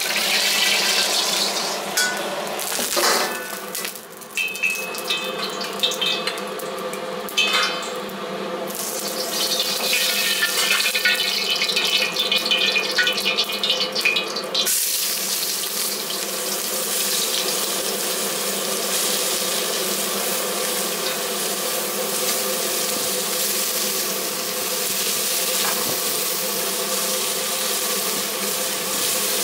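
A wok burner running steadily under a carbon-steel wok of hot oil, with the oil crackling and spitting. About halfway through, diced onions and carrots go into the oil and a steady sizzle takes over.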